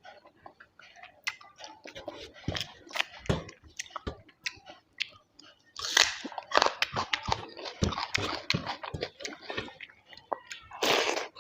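Close-miked chewing and biting of food, with wet mouth clicks and crunches coming irregularly, and two louder noisy bursts, one about six seconds in and one near the end.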